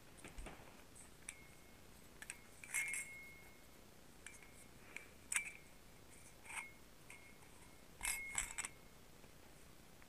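Light clicks and clinks of heat-gun parts being picked up and handled: the plastic housing pieces, the metal nozzle tube and the ceramic heating-element core. A few of the knocks leave a brief metallic ring, the loudest about three seconds in and again near the end.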